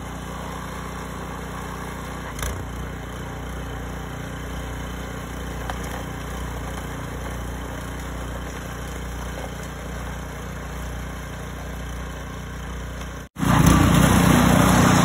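Engine running steadily. About 13 seconds in, the sound cuts out for a moment and comes back louder and rougher.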